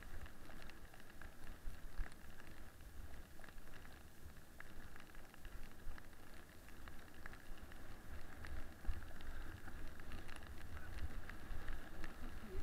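Toboggan sliding fast over packed snow: a steady hiss and scrape from the runners, with a low rumble and scattered small knocks from bumps in the track.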